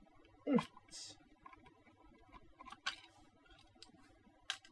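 Scattered light clicks and taps of a small screwdriver working at the plastic back housing of a Bluetooth speaker, with a brief falling vocal sound from the person about half a second in.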